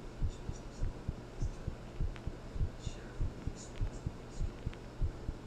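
Heartbeat: a regular rhythm of low thumps over a steady low hum.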